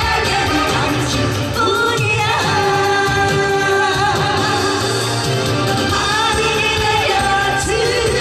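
A man and a woman singing a duet live into microphones over instrumental accompaniment.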